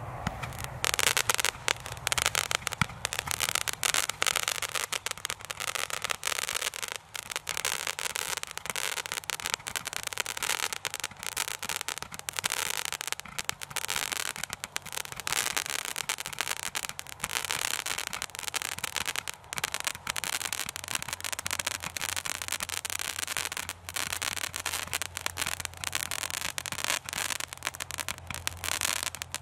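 A 180-shot Roman candle firing shot after shot in quick succession. The launch pops run together with the crackling of each star's golden tail into a continuous, dense crackle.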